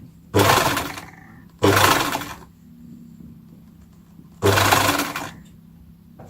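Domestic electric sewing machine stitching a zigzag stitch, run in three short bursts of about a second each with pauses between.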